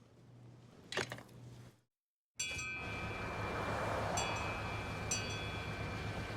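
A single sharp knock, a short dead silence, then chimes ringing, struck again every second or so, over a steady low rumble.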